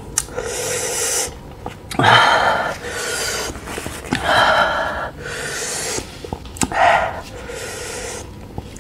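A person breathing hard through the mouth after eating an extremely spicy chili chip: a run of loud, noisy breaths in and out, each about a second long, from the burn in the mouth.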